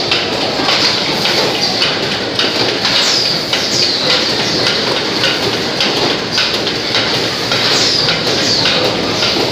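Automatic cup shrink-packing machine and its feed conveyor running, with a steady rattling clatter of plastic milk-tea cups knocking along metal rails. Short high squeaks that fall in pitch recur every second or so over the clatter.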